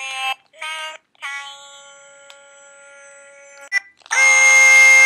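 Sing-A-Ma-Jig plush toys singing their electronic vocal notes as they are squeezed: a few short notes, then a longer note that slowly fades. Near the end two toys sing together, a loud held chord in harmony.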